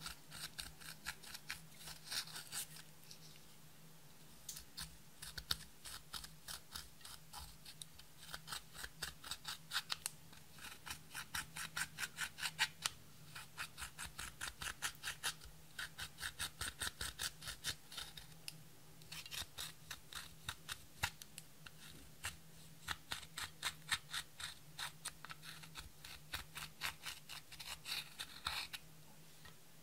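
Metal-tipped dotting tool scraping and chipping pressed eyeshadow out of the pans of a plastic palette: a quick series of short gritty scratches, about three a second, coming in runs with brief pauses.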